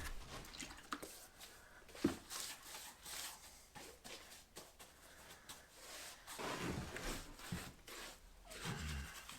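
Faint, intermittent rubbing and scraping with a few light knocks, one sharper knock about two seconds in: hand work with tools and materials on a concrete floor.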